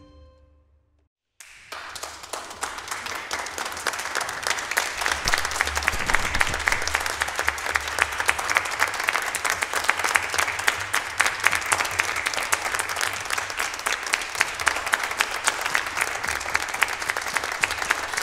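The orchestra's last chord fades out, and after a second of silence an audience starts applauding. The applause swells over the next few seconds and then carries on steadily.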